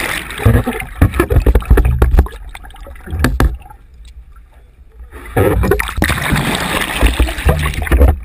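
Sea water sloshing and gurgling around a camera held just under the surface, with irregular low thumps throughout. It goes quieter and duller for a second or two past the middle, then turns loud and splashy again.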